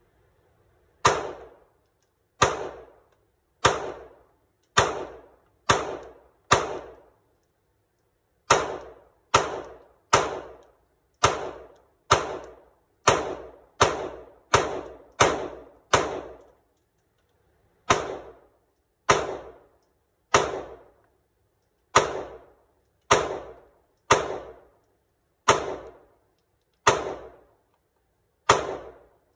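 Semi-automatic pistol fired in an indoor range: about two dozen sharp shots, roughly one a second, each with a short echoing tail. Two brief pauses break up the strings of fire.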